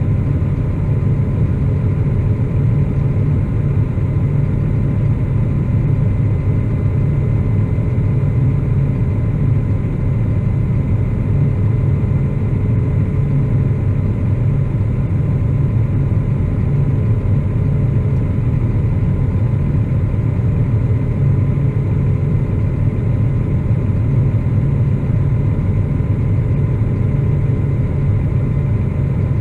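Claas Axion 850 tractor's six-cylinder diesel engine running steadily while the tractor stands still, a deep drone heard from inside the cab, with a faint steady high whine above it.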